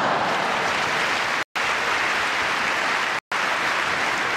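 Indoor crowd applauding steadily after a tennis point, with the sound track dropping out for a split second twice.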